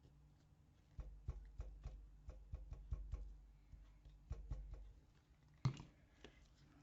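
Hands working card and paper on a craft mat: a quick run of light taps and knocks with dull bumps against the table, then one sharper knock near the end.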